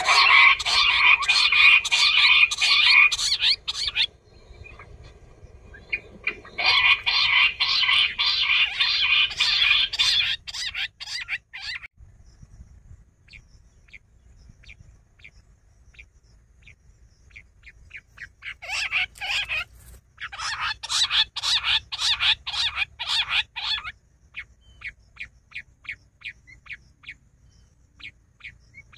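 Bush quail calling: four bursts of rapid chattering notes, each a few seconds long, with sparse single notes between them and toward the end.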